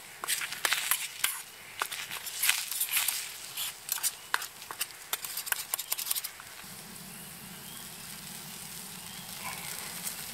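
Scrambled eggs sizzling in a small steel skillet over a campfire while a fork stirs and scrapes against the pan in quick irregular strokes. About six seconds in, the stirring stops and a faint steady hum is left.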